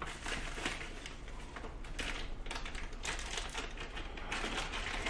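Hands unwrapping a small package: irregular crinkling and rustling of white packaging wrap, with many small crackles.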